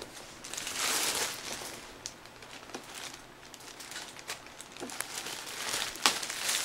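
Packaging crinkling and rustling as the subwoofer is handled during unboxing, with scattered light clicks and a sharp knock about six seconds in.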